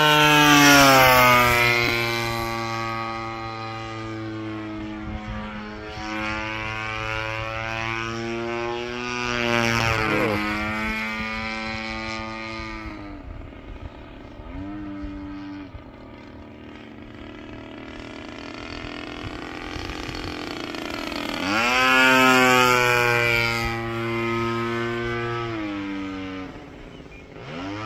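Engine of a Factor 3D radio-controlled aerobatic model airplane running in flight, its pitch sliding up and down with throttle changes and as the plane passes. It is loudest in the first couple of seconds and again about 22 seconds in, and fainter in between while the plane is high and far off.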